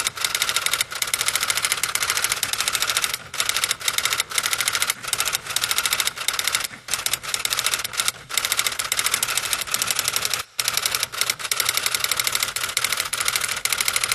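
Rapid typing clicks as a sound effect for text being typed, in quick runs of keystrokes broken by short pauses, the longest about ten seconds in.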